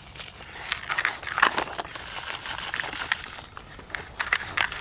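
Dry fishing groundbait, mixed with dispersing clay, being poured from a plastic bag into a plastic bucket and stirred by hand: an irregular rustling, crunching scrape of crumbly particles.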